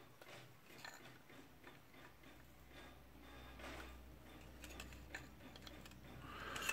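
Faint, scattered metallic ticks and light scrapes of pliers turning a retaining nut that holds an oil seal into a metal housing.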